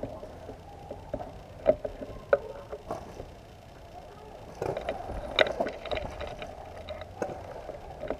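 Rustling with scattered light clicks and taps, thickest about five seconds in.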